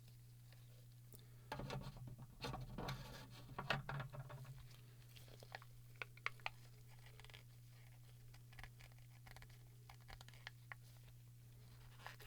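Small plastic clicks, scrapes and crunches of an inkjet cartridge being pried and picked apart by hand, busiest between about one and a half and four and a half seconds in, then sparse clicks.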